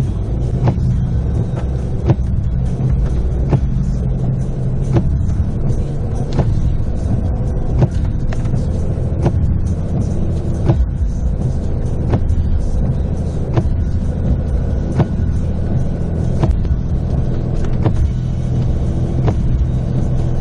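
Steady low rumble of a running motor vehicle, with a short tick repeating about every one and a half seconds.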